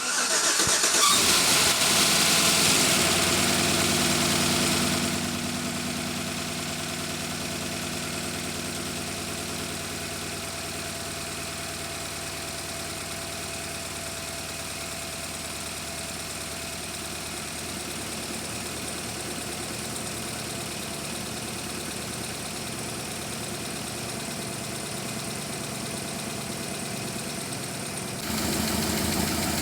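GM V8 engine running on its first start after a lifter and head-gasket job: loud for about the first five seconds, then settling into a steady idle, and growing louder again near the end. The engine has a cylinder 6 misfire, which is traced to a bad coil.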